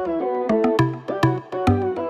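Background music: a plucked-string melody over a steady beat.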